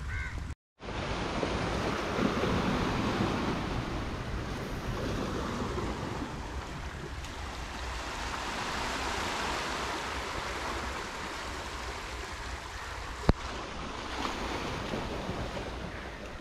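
Sea surf washing on a beach, a steady rush with wind on the microphone. There is a brief dropout just under a second in and a single sharp click about thirteen seconds in.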